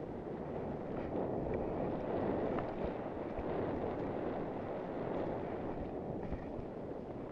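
Steady rushing noise of skiing through soft powder snow: skis swishing through the snow and wind buffeting the camera's microphone. It grows louder over the first second, with a few faint clicks.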